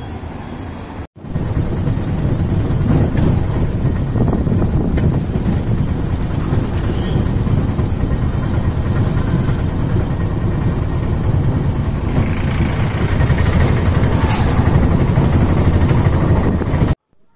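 Auto-rickshaw on the move, heard from inside its open cabin: the engine running steadily under loud road and wind noise. The sound breaks at a cut about a second in and stops abruptly near the end.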